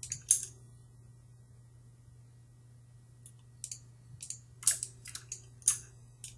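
Scattered clicks of a computer keyboard and mouse being worked: one click just after the start, a pause of about three seconds, then a string of irregular clicks. A faint steady low hum lies beneath.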